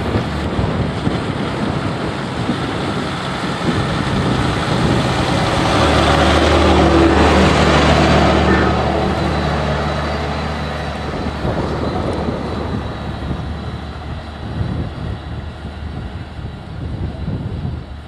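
John Deere 6170R tractor's six-cylinder diesel engine pulling a five-furrow plough at low revs, about 1500 rpm, with soil being turned. It gets louder as the tractor comes close, is loudest about seven to eight seconds in, then fades as it moves away.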